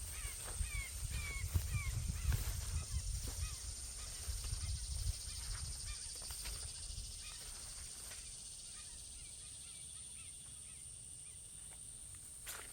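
A bird calling in a quick run of short, repeated calls, clearest in the first two seconds and fainter later. Low thuds of footsteps on the trail sound under the calls for the first five seconds or so, then stop.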